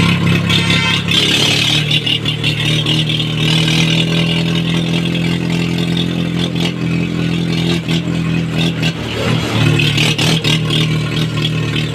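Mahindra tractor's diesel engine running at a steady speed with a high turbo whistle over it. The whistle is strongest in the first couple of seconds and again near the end, and the engine note dips briefly about nine seconds in.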